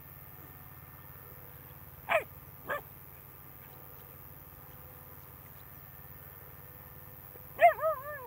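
Alaskan Malamute giving two short, high yelps about two seconds in, then a quick run of three or four yips near the end, over a steady low hum.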